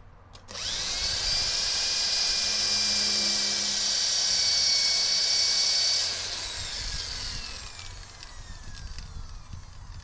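Corded electric drill starting about half a second in with a rising whine and running steadily at speed for about five seconds while drilling a metal bracket. It is then released and its whine falls away as the motor spins down.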